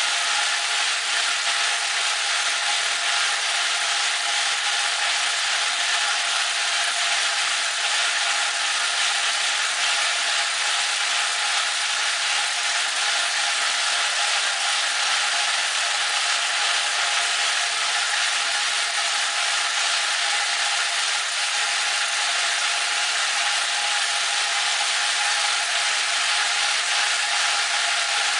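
Rubber/EVA splitting machine running steadily as it splits a rubber sheet: a constant high hiss with a few steady tones underneath.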